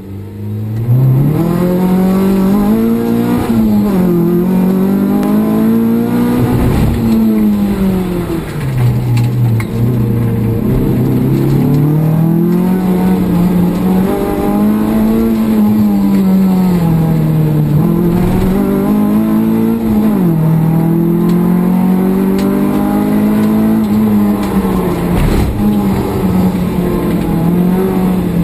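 Nissan Sunny race car's engine heard from inside its stripped cabin, pulling away under hard throttle in the first second and then revving up and down repeatedly, its pitch climbing and dropping as the car accelerates and slows for the corners.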